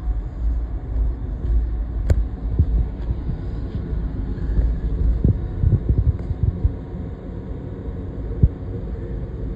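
Engine of a high-pressure drain jetting unit running as a steady low rumble and hum, with irregular low knocks and thumps over it.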